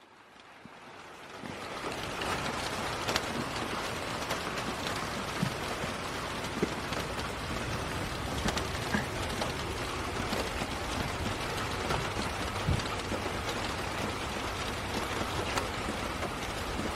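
Steady rain falling, with scattered louder drops ticking on surfaces close by. The sound fades in over the first second or two, then holds even.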